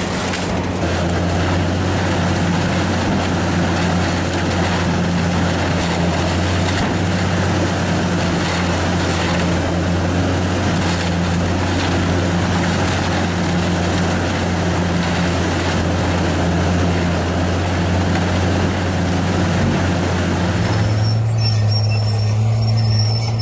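Large diesel engine of heavy machinery running steadily under load, with a dense noisy layer of material being worked over it. About 21 seconds in, the sound switches abruptly to a slightly higher, smoother engine hum with a faint high whine.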